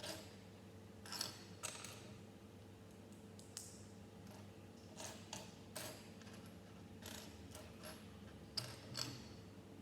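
Plastic Lego bricks clicking and knocking as pieces are picked up and pressed together, a dozen or so light, irregular clicks.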